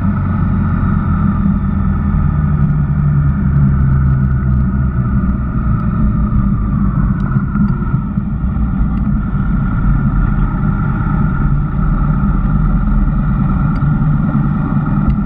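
Honda VFR1200X Crosstourer's V4 engine running under way, its pitch shifting a little with speed, mixed with wind and wet-tyre noise.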